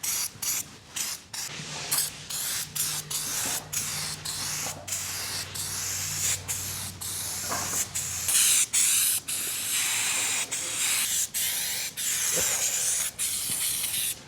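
Aerosol spray can of rubberized truck paint hissing as it sprays, in many short bursts with brief breaks between them and a longer unbroken stretch near the middle.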